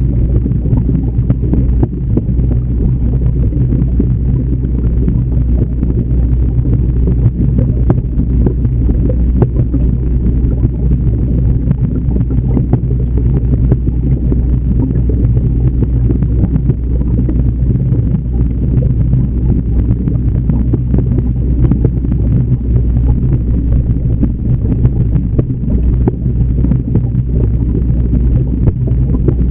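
Steady low rumble and hum heard underwater in an aquarium, the constant noise of the tank's running water and equipment picked up by a submerged camera, with a light hiss over it.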